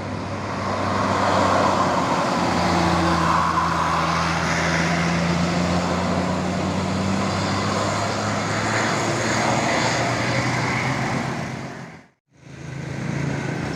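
Diesel tour bus engine running hard as the bus climbs past close by, with road and tyre noise. The sound cuts out abruptly for a moment about twelve seconds in, then engine noise returns.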